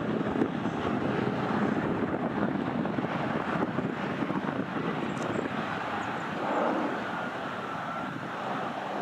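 Four-engined Airbus A340 airliner on approach, its jet engines heard as a steady, even rumble.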